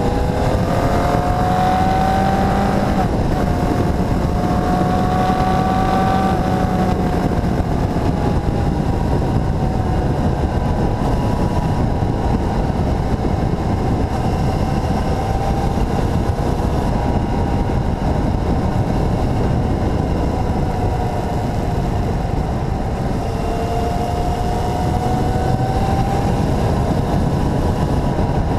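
Motorcycle engine running on the road, its pitch climbing twice in the first few seconds and again near the end as it accelerates. Heavy wind roar on the action camera's microphone runs underneath.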